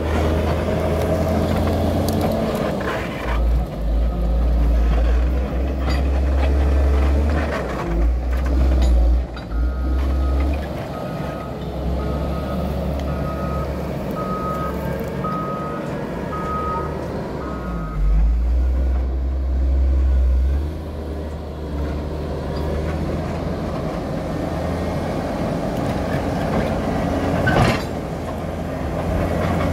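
Caterpillar 140M motor grader's diesel engine working under load as the blade pushes soil, its level rising and falling with the throttle. In the middle its reversing alarm beeps about nine times, a little more than one beep a second, as it backs up. Near the end there is a single sharp knock.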